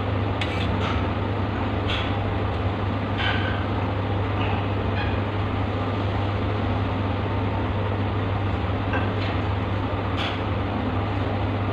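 Steady low electrical or mechanical hum, like a fan or air conditioner running, with a few faint light clicks and rustles from hands pressing epoxy putty at the pipe.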